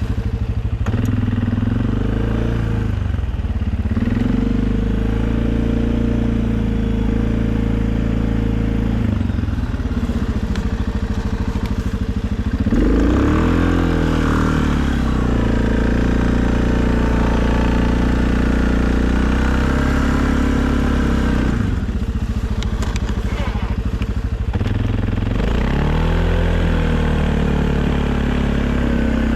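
2020 Suzuki KingQuad ATV engine running steadily while plowing snow, its pitch swinging up and back down with the throttle about halfway through and again near the end.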